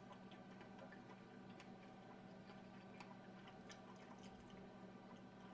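Near silence: a faint steady hum with a few faint, scattered ticks.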